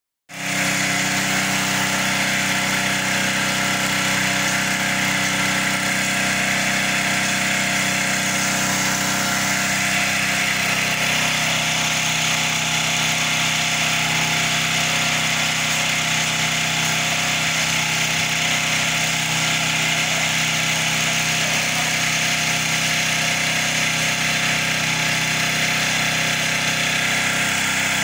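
Engine-driven pressure washer running steadily, its motor note under the hiss of the high-pressure water spray. The engine tone and the spray shift slightly about ten seconds in.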